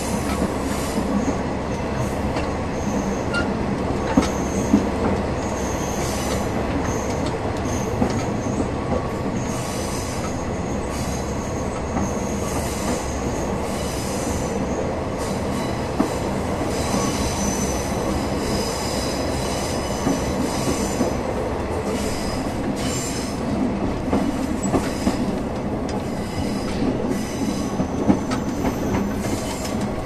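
Running noise heard at the gangway between two cars of a moving diesel railcar: continuous wheel-on-rail noise with scattered sharp knocks and a thin, high wheel squeal that comes and goes.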